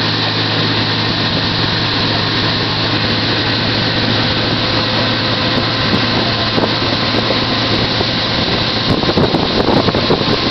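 Motorboat engine running steadily at towing speed, with the rush of the wake and wind on the microphone; the wind buffeting grows louder near the end.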